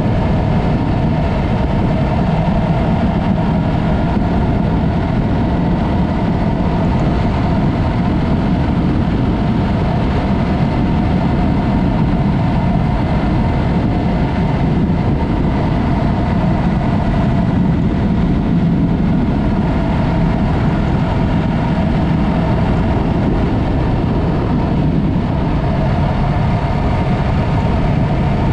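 Yamaha MT-03 motorcycle engine running steadily through its Mivv aftermarket exhaust, at an even pitch with no revving.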